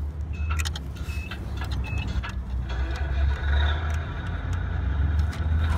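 A steady low rumble throughout, with a few light plastic clicks in the first two seconds as a Bruder Liebherr L574 toy wheel loader is handled on the ramp of a toy trailer.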